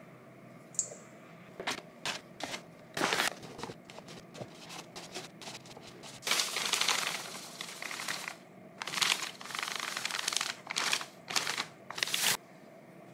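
Intermittent crinkling and rustling of something being handled: a string of short noises, a longer stretch of about two seconds starting about six seconds in, then more short bursts that stop abruptly near the end.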